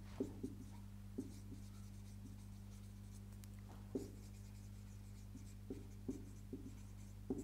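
Marker pen writing on a whiteboard: faint, irregular short strokes and taps of the tip, over a steady low hum.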